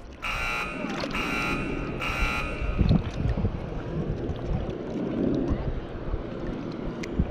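Three short buzzing electronic tones, about a second apart, in the first two and a half seconds, then a steady rumble of wind on the microphone over open water.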